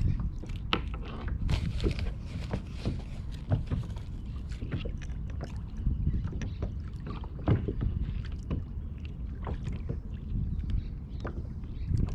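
Water lapping against a kayak hull, with many irregular light knocks and clicks over a steady low rumble.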